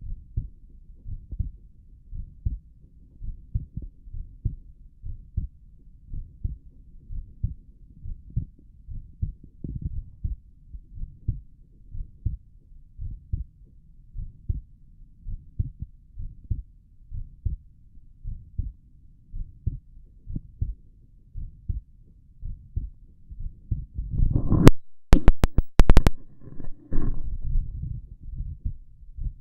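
Human heartbeat heard through a stethoscope: steady, regular lub-dub beats, low and dull. About 24 seconds in, a loud scraping with several sharp clicks covers the beats for two or three seconds, then the beats come back.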